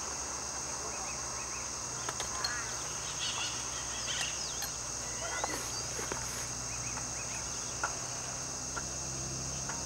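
Steady high-pitched drone of insects, with a few short chirping bird calls in the middle.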